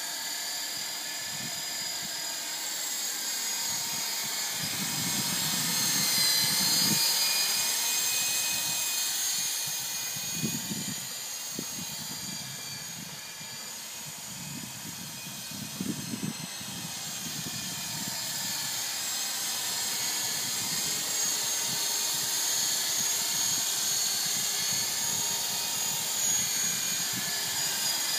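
Syma S33 radio-controlled coaxial helicopter in flight: the high-pitched whine of its electric motors and rotors, drifting in pitch and loudness, loudest about six seconds in and again near the end.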